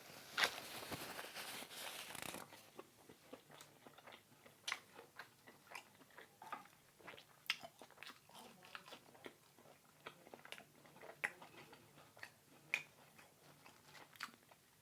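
A person biting and chewing food close to the microphone, with a crunchy stretch in the first two seconds, then scattered small clicks of chewing.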